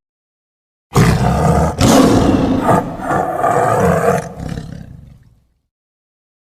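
A tiger roaring: one long, rough roar that starts about a second in, with a few brief catches, and fades out after about four seconds, with dead silence before and after.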